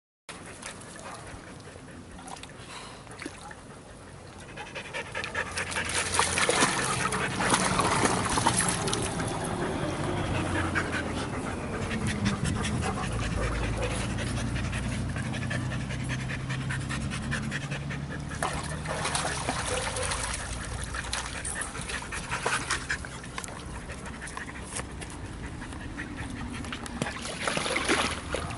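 A dog panting, getting louder about five seconds in, with scattered clicks and knocks.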